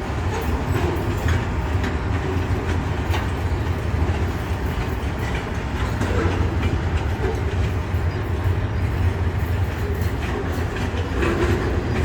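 Freight train of tank wagons rolling along the track, its wheels clicking over rail joints over a steady low rumble.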